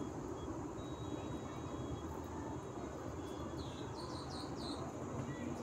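Steady low background rumble, with a small bird chirping four quick times about four seconds in.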